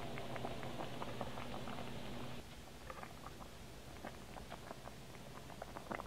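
Pot of pasta water at a boil in a stainless saucepan, bubbles popping in small irregular clicks and crackles. A low steady hum underneath stops about two and a half seconds in.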